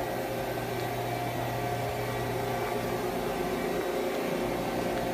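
Steady mechanical hum of shop machinery: a low drone with a few higher steady tones over it, unchanging throughout.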